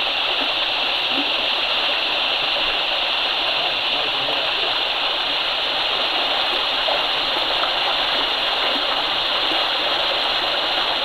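Creek water running over rocks, a steady, even rush with no breaks.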